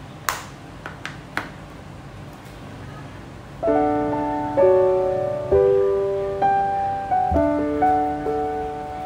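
A few light clicks in the first second and a half, then background piano music that starts about three and a half seconds in, with notes and chords changing about once a second.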